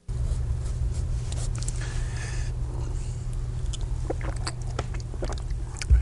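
A man drinking from a plastic cup: sips, swallows and small mouth clicks, over a steady low hum. A single thump sounds just before the end.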